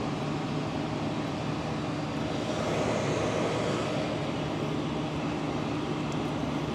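Steady drone of aircraft and ground equipment on an airport apron: a low hum under a wash of engine noise that swells a little around the middle.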